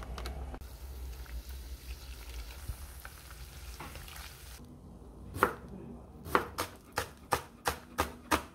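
Kelp noodles stirred with wooden chopsticks in a pot of hot water on the stove, a soft steady hiss with a low hum. After about four and a half seconds a knife chopping green onion on a plastic cutting board takes over: about eight sharp strikes, quickening to roughly three a second.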